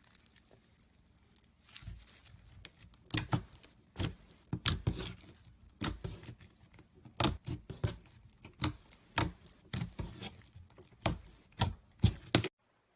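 Slime being squeezed and poked by hand, giving irregular sharp clicking pops and soft crackling. The sound starts after a quiet first couple of seconds and cuts off suddenly near the end.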